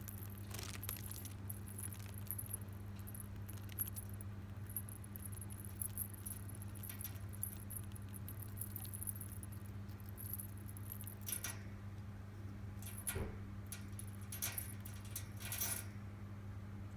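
A pet degu's small scratching and clicking sounds, scattered and irregular, over a steady low electrical hum; the clicks bunch together in the last few seconds.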